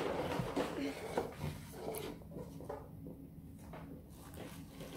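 Light clicks and knocks from a plastic plate being handled and lifted off a table, mostly in the first two seconds.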